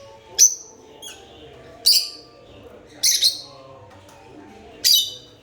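Lovebirds giving short, shrill chirps: four sharp calls spaced about a second apart.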